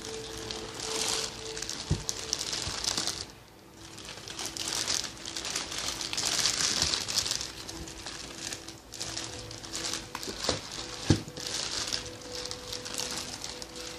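Packaging crinkling and rustling in repeated swells as sneakers are handled and unwrapped, with a couple of light knocks, the sharpest about 11 seconds in.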